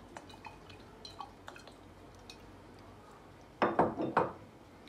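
Faint scattered ticks as olive oil drips onto the vegetables in a glass oven dish, then a short clatter of three or four knocks near the end, glass or a bottle being set down on the counter.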